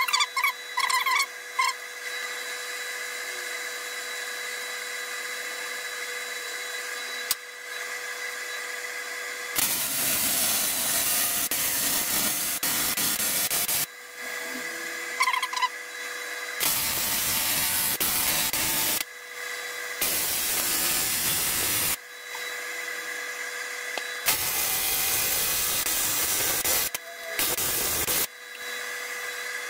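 AC TIG welding arc on a thick aluminium outboard cylinder head: a loud, even crackling hiss in several stretches of a few seconds, starting about a third of the way in, with short breaks between as the arc is stopped and restarted. The welding set's steady hum runs underneath.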